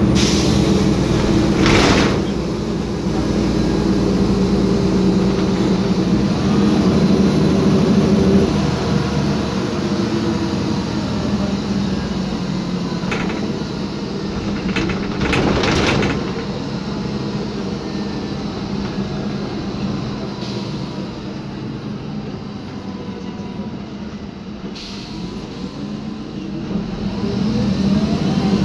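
Inside a 2010 MAN Lion's Classic city bus under way: its MAN E2876 CNG engine runs steadily under the floor while the suspension knocks and rattles. A few short sharp noises cut through, the loudest about 2 and 16 seconds in, and near the end the engine pitch rises as the bus speeds up.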